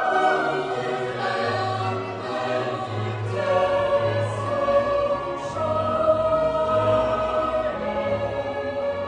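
Music: long sustained sung notes in several voices over a low, pulsing bass line.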